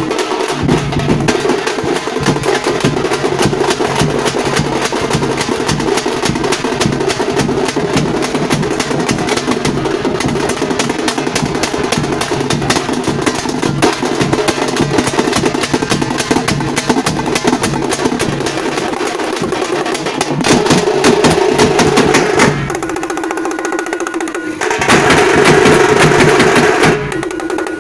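Tamate frame drums played in a fast, dense rolling rhythm, growing louder twice near the end.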